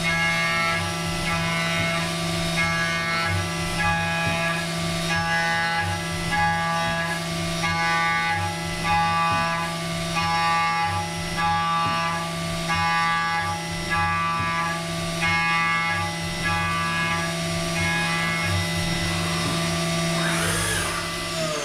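CNC milling machine's end mill cutting an aluminium block in short repeated stepped passes. A steady spindle hum runs under a pitched cutting tone that sounds in even bursts about every two-thirds of a second.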